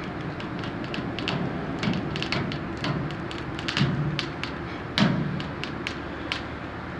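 A ship's engine running steadily with a low rumble. Over it come many irregular sharp clicks and several heavier thumps, the loudest about five seconds in.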